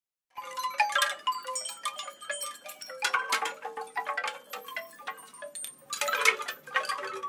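Chiming sound effect: a dense tinkling of many small struck tones, each ringing briefly, starting after a short silence and swelling in louder clusters about three and six seconds in.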